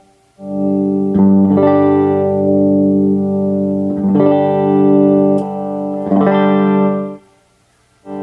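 Yamaha Studio Lord SL-500 guitar playing slow strummed chords, each left to ring for one to three seconds. The playing stops for a moment near the end.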